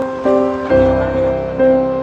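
Background music: a few sustained chords, struck one after another, with a new chord about every half second.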